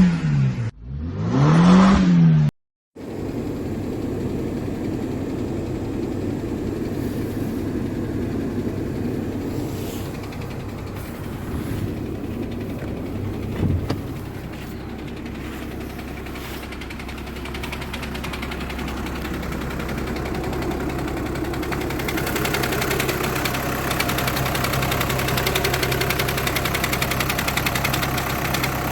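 VW car with a DSG gearbox: the engine is revved up and let fall back in the first couple of seconds, then runs steadily at idle with a knocking vibration that grows louder and rattlier in the last several seconds. This is the strange sound the title points to as coming from a vibrating DSG clutch plate or its bearing.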